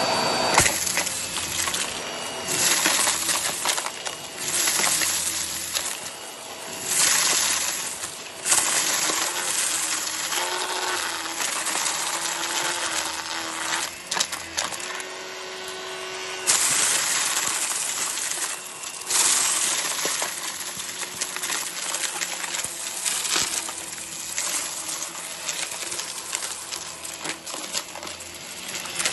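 Hart vacuum running over carpet and sucking up a heap of beans, pennies and fluff, the hard bits clattering and clinking through the floorhead in repeated loud surges as it passes over the pile.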